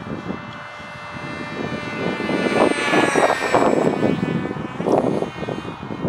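RC flying wing's electric motor and propeller whining as the plane passes overhead at half throttle. The pitch slides down from about two seconds in as it moves away, and a rushing noise swells at the same time.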